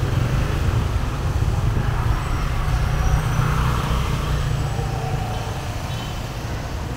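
Motor scooters running on a narrow street: steady traffic noise with a heavy low rumble that eases off over the last few seconds, and a swell in the middle as one passes.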